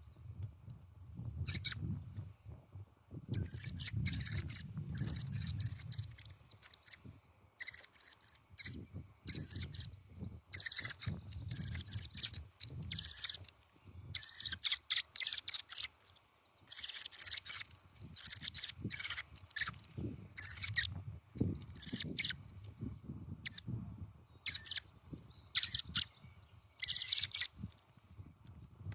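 Small songbirds chirping, with short, high calls in quick clusters throughout. A low rumble comes and goes underneath.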